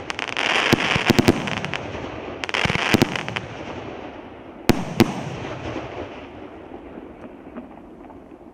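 The final shots of a 49-shot, 50 mm firework cake (SU-42 "Asorti"): sharp shell bursts in quick clusters of two or three, over a dense crackling hiss. The last two bangs come about five seconds in, and the hiss then dies away.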